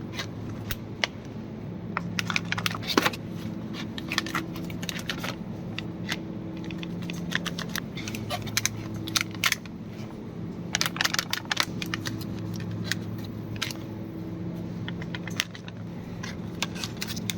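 Food packaging being handled: many sharp crinkles and clicks over a steady low hum.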